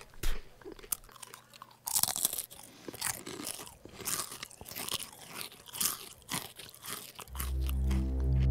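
Potato chips crunching as they are eaten, with the foil chip packet crinkling as a hand reaches into it: a dense run of short crackles and crunches. Near the end a low steady hum that pulses comes in and grows louder.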